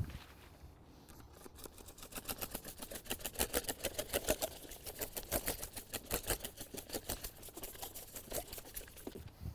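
Stiff hand brush scrubbing the chiselled face of a stone block in fast back-and-forth strokes, several a second, starting about a second and a half in. It is clearing dust and chips out of the patch cavity.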